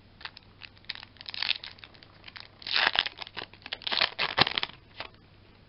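Foil wrapper of a Yu-Gi-Oh booster pack being torn open by hand, crinkling and crackling in bursts, loudest about three and four seconds in.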